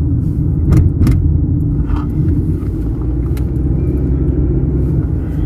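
Car interior noise while driving: a steady low rumble of engine and road. A few light clicks are heard about a second in and again about three and a half seconds in.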